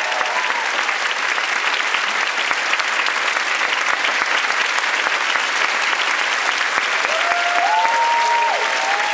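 Large theatre audience applauding steadily during a curtain call. A few pitched calls rise above the clapping near the end.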